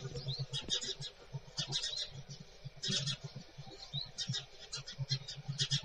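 Small birds chirping: quick clusters of short, high notes, repeated every second or so.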